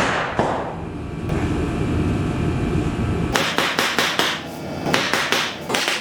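Rapid sharp clicks and crackles of parts packaging and small parts being handled, densest in the second half. Under the first half there is a low steady hum that cuts off about three seconds in.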